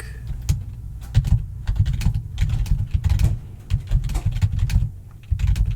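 Typing on a computer keyboard: a fast run of key clicks, sparser in the first second, with a short pause near the end.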